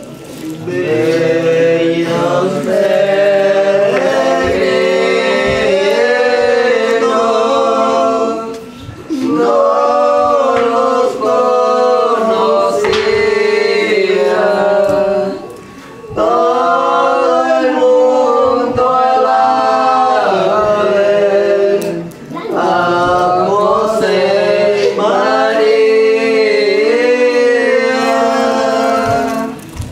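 A group of voices singing a song in four long phrases, with a short break between each.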